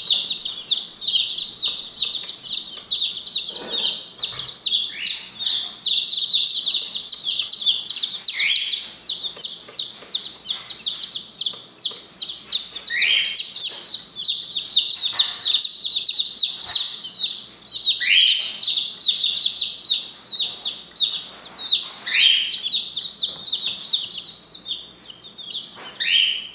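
A brood of Brahma chicks peeping nonstop, many short high-pitched peeps overlapping. Every few seconds a single louder peep rises in pitch.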